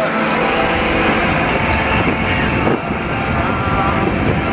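Steady road and wind noise of a vehicle cruising at highway speed.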